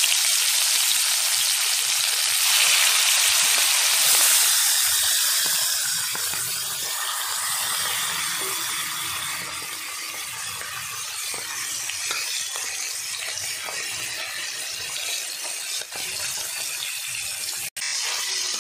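Turmeric-and-salt-marinated bata fish pieces sizzling as they fry in hot oil in a kadai, loudest in the first few seconds as the pieces go in, then settling into a steadier, slightly quieter sizzle.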